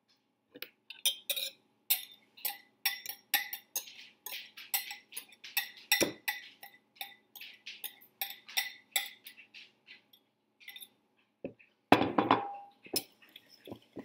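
A utensil knocking and scraping against ceramic bowls, about three sharp clinks a second, as egg yolks and sugar are scraped out of a small bowl into a large mixing bowl. About twelve seconds in comes a louder clunk of ceramic with a brief ringing.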